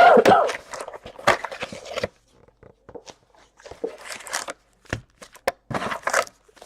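Cardboard trading-card boxes and packs being handled on a table: a string of sharp knocks and clicks with short bursts of cardboard rustling and scraping.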